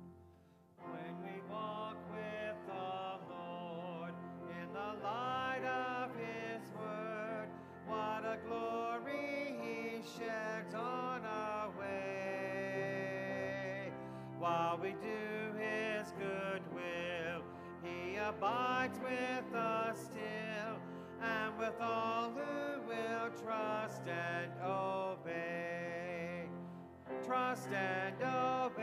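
A man sings a hymn at a microphone, his voice rising and falling in long held notes, with piano accompaniment.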